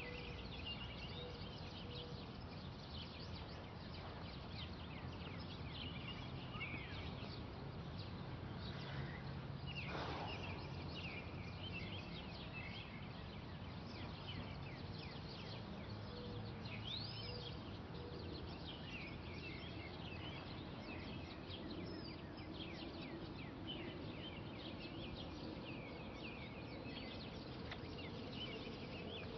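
Faint outdoor ambience: many small birds chirping in quick short calls over a steady low background rumble.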